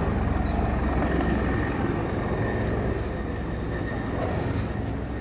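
Helicopter flying low overhead: steady rotor chop and engine noise with a thin high whine, slowly fading in the second half.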